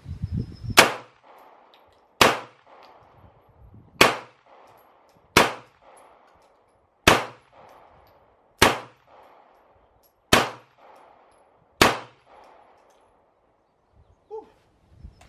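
Eight gunshots fired one at a time at a steady pace, about one and a half seconds apart, each sharp and loud with a short ring-out.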